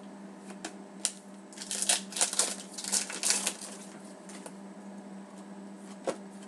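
Hockey trading cards being flicked through by hand: a few single clicks, then a quick run of card slaps and rustles from about one and a half to three and a half seconds in, and one more click near the end.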